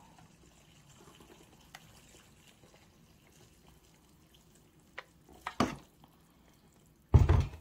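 Hot water poured from an electric kettle onto dry instant ramen noodles in a ceramic bowl, a faint trickle with a few light clicks. A loud thump near the end as the kettle is set back down on the wooden table.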